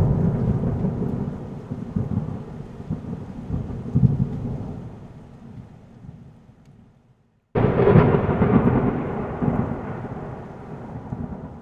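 Thunder-like rumble sound effect: a boom dying away over several seconds, then a second boom that hits suddenly about seven and a half seconds in and rumbles away in turn.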